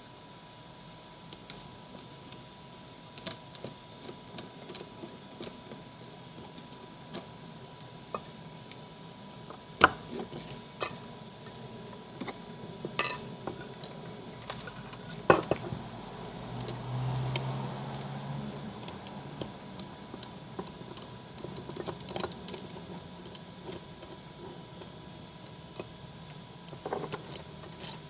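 Scattered small metallic clicks and clinks of a small transformer being taken apart, its steel laminations pried loose with a thin blade, with a few sharper clicks in the middle.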